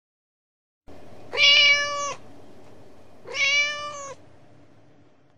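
A kitten meowing twice, two drawn-out mews of about a second each, a second apart, over a faint background hiss.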